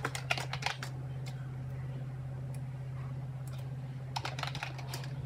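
Computer keyboard keys clicking as text is typed: a quick run of keystrokes in the first second, a pause, then another short run about four seconds in, over a steady low hum.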